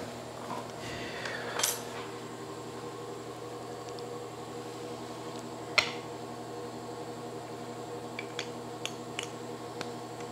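Small wooden box being handled in the hands, with a brushing sweep near the start, one sharp click about six seconds in and a few light ticks near the end. A steady hum runs underneath.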